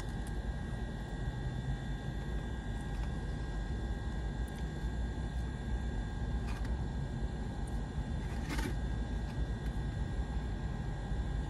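Steady low rumble and hum inside a car's cabin, with a faint steady whine above it, and a couple of brief faint rustles or clicks from eating about six and eight and a half seconds in.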